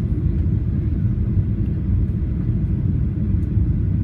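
Steady low rumble of a Boeing 737 airliner, even throughout with no distinct events.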